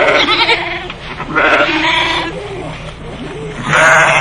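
Farm animals bleating: three loud, wavering bleats, the last starting near the end.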